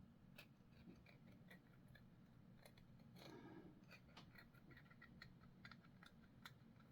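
Near silence with scattered faint clicks and snips of hobby sprue clippers and small plastic model parts being handled.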